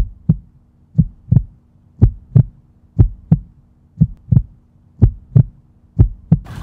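Heartbeat, a double thump (lub-dub) about once a second over a faint steady hum, stopping near the end.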